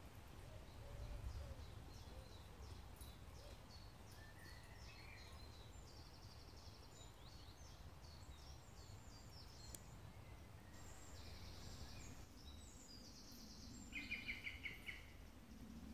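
Woodland birdsong: several small birds chirping and singing faintly, with a louder rapid trill near the end, over a low steady rumble.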